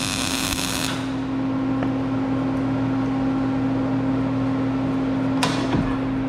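Electric welding arc buzzing as a plug is welded into a pipe end, stopping about a second in, with a short second burst near the end; a steady electrical hum runs underneath.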